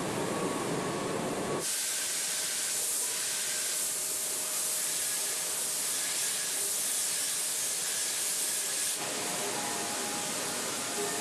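Steady hiss of robot paint sprayers in a spray booth, starting abruptly about two seconds in and cutting off about nine seconds in. Before and after it, a duller steady rushing noise.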